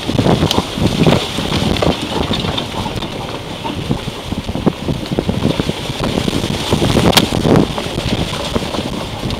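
Wind buffeting the microphone of a camera held out beside a Jeep's wheel as it drives along an overgrown dirt trail, over the rumble of the tyre and rustling brush. There are many small knocks and one sharper knock about seven seconds in.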